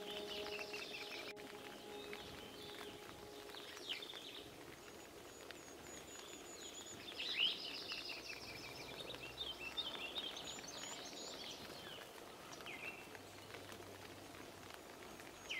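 Wild songbirds calling and singing: quick chirps, short trills and high thin notes, with the loudest call about seven seconds in, over a faint steady outdoor hiss.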